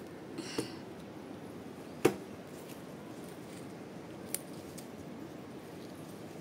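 Stems of dalle khursani (round Nepali chillies) snapped off a potted plant by hand: a few short sharp snaps, the loudest about two seconds in and a softer one about four seconds in, with light leaf rustle.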